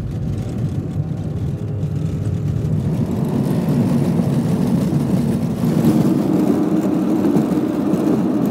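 Motorhome engine and road noise heard from inside the cab while driving, a steady low rumble that grows louder over the first few seconds.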